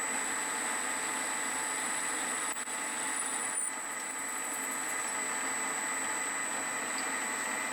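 Small metal lathe running steadily with a constant high motor whine, with a brief dip and a short faint high squeal about three seconds in.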